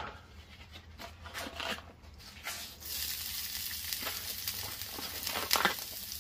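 Diced onion going onto an oiled, hot Blackstone flat-top griddle: light scattered taps at first, then a steady sizzle of onion frying in pecan oil from about halfway through. There is one sharp tap near the end.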